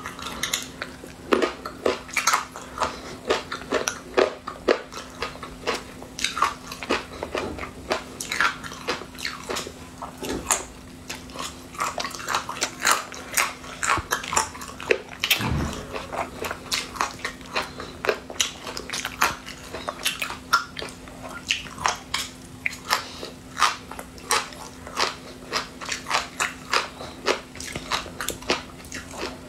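Close-miked eating: a person biting and chewing crunchy chili-pickled food, with crisp crunching clicks two to three times a second.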